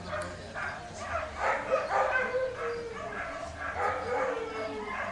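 Dobermann barking and yipping in short sharp calls, with two drawn-out whines that slowly fall in pitch.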